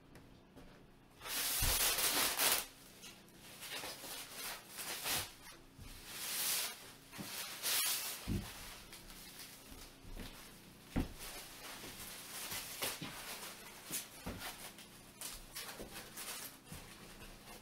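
Plastic stretch wrap crinkling and rustling as it is pulled and peeled off the hard shell of a clamshell rooftop tent, loudest about a second in, with a few soft thumps along the way.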